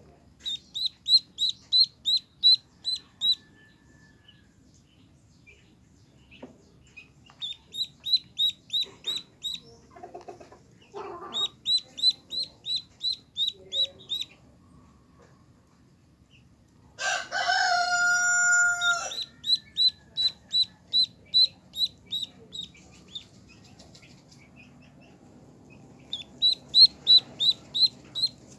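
Newborn duckling peeping: runs of loud, high, quick peeps, about three or four a second, with pauses between. About two-thirds through, a rooster crows once for about two seconds.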